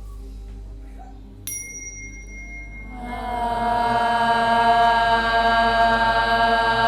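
A small bell or chime is struck once and rings with a few clear high tones. About a second and a half later a group of voices begins a chanted tone, held steady and loud over a low drone.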